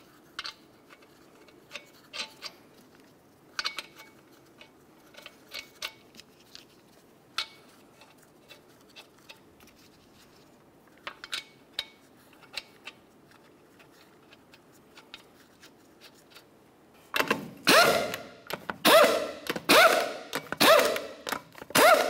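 Steel lug nuts clicking and clinking lightly as they are threaded onto the wheel studs by hand. About seventeen seconds in, a handheld power tool runs in a series of short loud bursts, driving the lug nuts snug.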